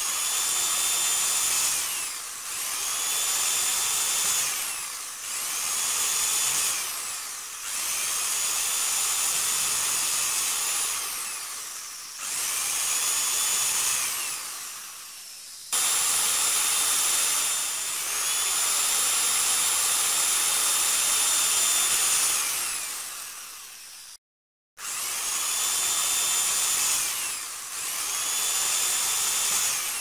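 Electric drill run in repeated bursts of one to a few seconds, the motor whine gliding up as it spins up and down as it slows after each release, with one longer steady run of about seven seconds in the middle. The sound cuts out completely for a moment late on.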